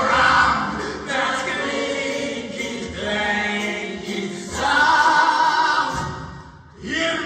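High school show choir singing in harmony, a swell of massed voices. Near the end the singing breaks off briefly, then comes back in.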